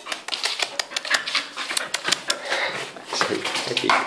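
Puppies playing and mouthing each other on a blanket: fast, irregular clicking with rustling in between.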